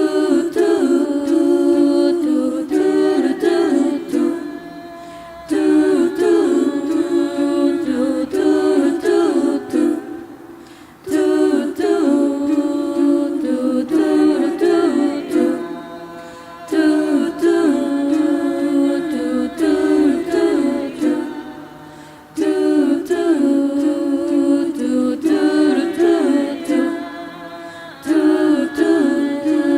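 A cappella vocal group singing in several voice parts without instruments, a phrase repeated about every five and a half seconds, each starting strong and fading before the next.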